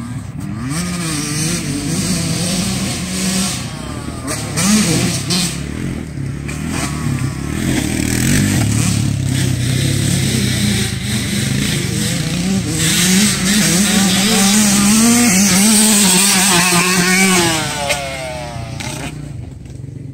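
Off-road engines, a quad ATV and dirt bikes on a dirt motocross track, revving up and down as they ride. The revving is loudest from about 13 to 18 seconds in, then drops away.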